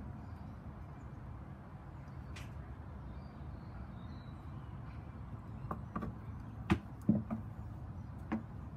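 Knocks and taps of a cat playing with a wand toy against a carpeted cat tree: a few sharp knocks in the second half, the loudest two close together, over a steady low background rumble.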